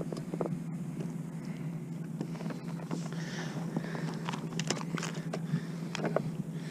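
Scattered clicks and light knocks of a landing net and a freshly caught fish being handled on a plastic fishing kayak, busiest a little past the middle, over a steady low hum.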